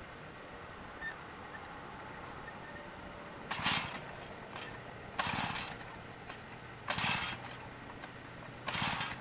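Jiffy gas ice auger being pull-started: four rapid cord pulls about two seconds apart, the engine turning over briefly with each pull but not catching.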